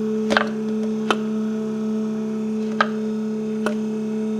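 Small electric pump humming steadily while it should be switched off, the sign of a failing float switch that has not cut it out. A few sharp, scattered clicks sound over the hum.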